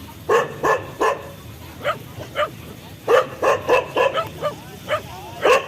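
A dog barking repeatedly in short, sharp barks, some coming in quick runs of several barks.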